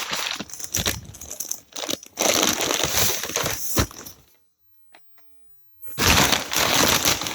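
Packing material crinkling and rustling as a turbo manifold is unwrapped and pulled from its box, with a pause of about a second and a half before it starts again.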